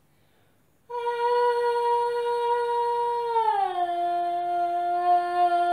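A girl's voice holding one long steady note close into a cling-film-covered bowl, starting about a second in, then gliding down to a lower note a little past halfway and holding it. She is voicing into the bowl so the stretched cling film vibrates and shakes the glitter on it.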